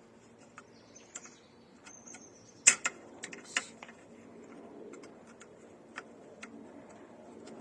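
Scattered sharp clicks and taps of metal parts and tools being handled while the outboard's lower unit is refitted, the loudest cluster a little under three seconds in. Two faint high chirps come about one and two seconds in.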